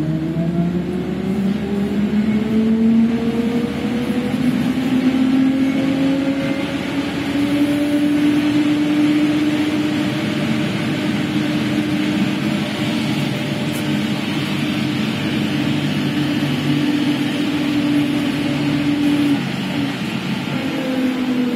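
Electric traction drive of an Ikarus-Ganz 280.94 trolleybus whining as it accelerates, the pitch rising over the first several seconds and then holding steady at speed over road noise. Near the end the power drops off and the whine falls in pitch as it slows.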